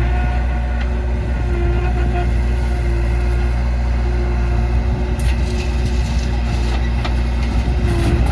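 Diesel engine of a JCB 3DX backhoe loader running steadily under load, with scattered clatters and scrapes in the second half.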